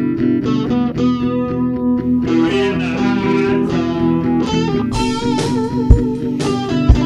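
A rock song playing: an electric guitar riff, with drums (kick drum thumps about once a second and cymbals) coming in about five seconds in.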